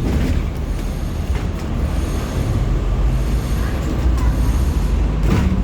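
Steady low rumble of vehicle noise, with faint voices in the background.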